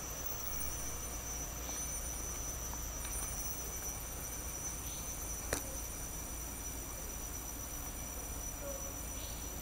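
Steady high-pitched insect tone over a low rumble, with one sharp click about halfway through.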